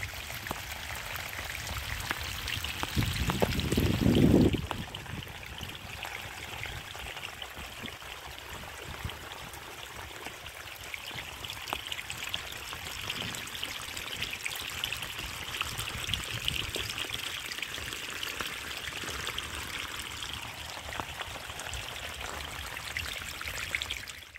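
Steady splashing and trickling of water, a hiss dotted with small drips, with a brief low rumble about three to four seconds in.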